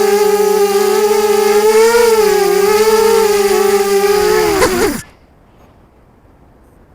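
FPV quadcopter's electric motors whining steadily, pitch wavering slightly with throttle, then sliding down in pitch and cutting off about five seconds in as the motors spin down. Only a faint hiss follows.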